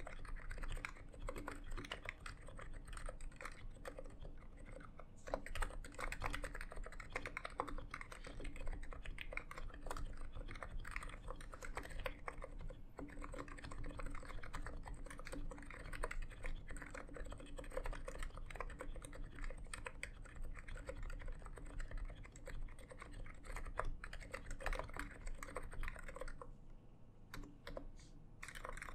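Continuous typing on a NiZ X87 keyboard, which has 45 g electrocapacitive Topre-style rubber-dome switches and PBT keycaps in a plastic case: a steady stream of soft keystrokes. Near the end the typing stops for about two seconds, then starts again.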